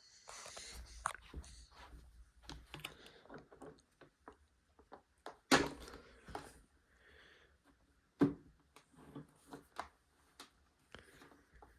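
Irregular light knocks, clicks and thumps of something being handled, the loudest about five and a half and eight seconds in, with no motor running.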